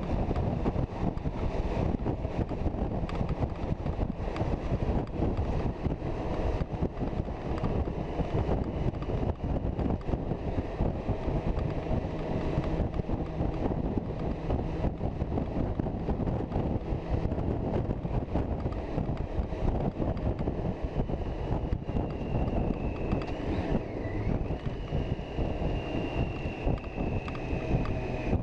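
Touring motorcycle cruising at motorway speed: a steady rush of wind buffeting the microphone over engine and tyre noise. A faint high whine slides slowly downward in the last few seconds.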